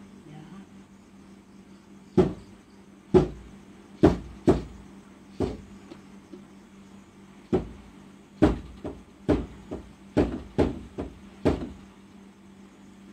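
Loud knocking, about fourteen heavy knocks at uneven intervals that come faster in a run near the end, over a faint steady hum.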